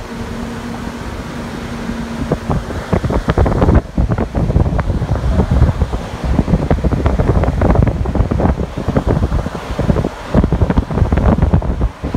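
Wind buffeting the microphone in loud, irregular gusts of low rumble, starting about two or three seconds in. Before that there is a steadier low hum.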